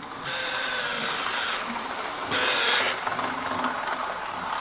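Model train running on the layout's track, its small electric motor whirring, starting up just after the beginning and growing louder for a moment about halfway through.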